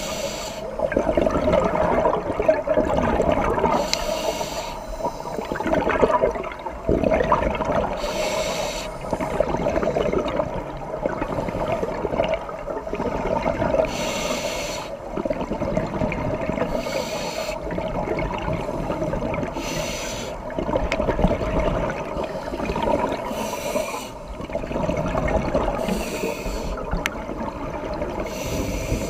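Scuba diver breathing through a regulator underwater, heard through the camera housing: about eight breaths, each a second-long hiss of bubbles, spaced three to five seconds apart over a steady murky rumble of water.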